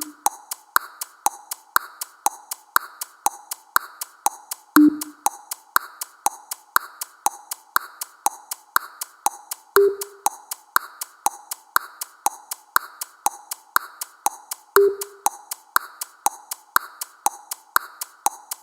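Countdown timer sound effect: electronic clock-like ticking at about two ticks a second, with a short low beep marking every five seconds. The beep steps up in pitch about ten seconds in.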